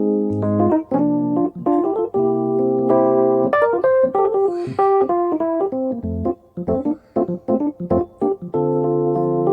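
Instrumental background music: held chords alternating with short, clipped notes, the clipped notes clustering in a passage about two-thirds of the way through.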